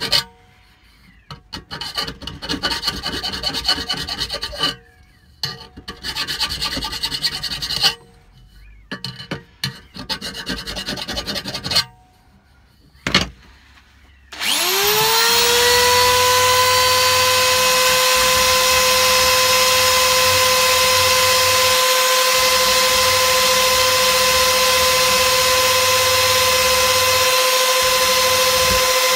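Hand file rasping against a polished metal tube in short runs of strokes with pauses between them. About halfway through, a hand-held power tool starts with a quick rising whine, then runs at a steady, even pitch.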